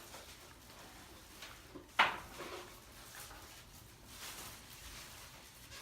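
Objects being handled at close range: one sharp click or knock about two seconds in, with faint rustling later.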